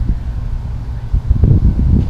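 Wind buffeting the microphone: an uneven low rumble that swells in gusts, strongest about one and a half seconds in.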